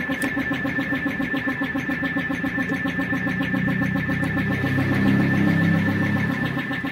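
An engine running with an even, fast pulse and a steady high tone over it; a deeper rumble swells from about two seconds in, is loudest around five seconds, and fades near the end.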